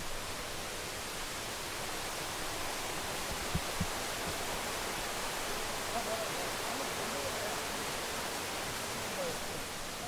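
Steady, even rushing noise of the outdoors along a forest trail, with two soft footfalls about a third of the way in and faint distant voices near the end.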